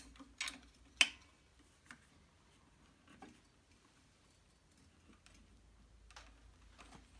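Hands adjusting a bench chain grinder on its aluminium mounting bracket: a handful of scattered light clicks and taps, the sharpest about a second in.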